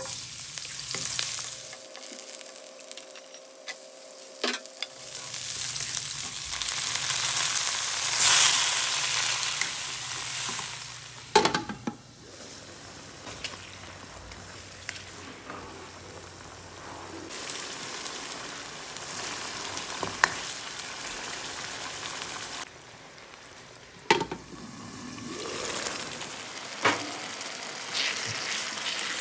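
Chopped garlic sizzling as it hits hot oil in a nonstick wok, then chicken pieces frying and being stirred with a spatula. A few sharp knocks come from the spatula against the pan.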